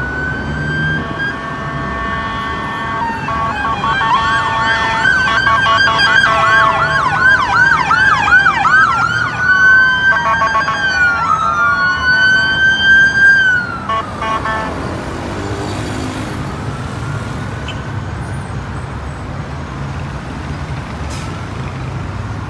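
Police sirens of unmarked Mexico City police units wailing, then switching to a fast yelp, over the steady drone of heavy road traffic. The sirens cut off suddenly a little past halfway, leaving only the traffic noise.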